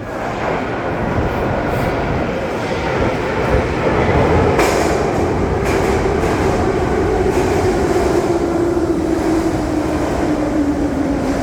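Subway train running loud, with a motor whine that falls steadily in pitch through the second half as the train slows. A few sharp clicks from the wheels sound over the rumble.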